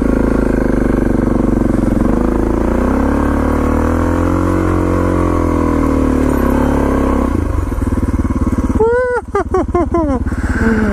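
Suzuki DR650's single-cylinder four-stroke engine working under load up a steep dirt hill climb, its pitch rising and falling with the throttle, then dropping off about seven seconds in as the bike crests the top. A rider's excited shouts follow near the end.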